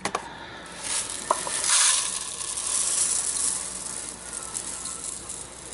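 Dry uncooked rice grains pouring out of a plastic tub into a small measuring cup: a grainy, hissing rush of grains that starts a little under two seconds in and carries on more faintly, with a few light clicks of the cup and tub before it.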